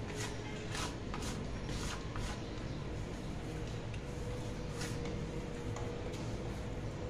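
Hands kneading soft yeast dough on a stone worktop: quiet squishing with a few light pats as the dough is pushed with the heel of the palm and folded back, over steady background noise.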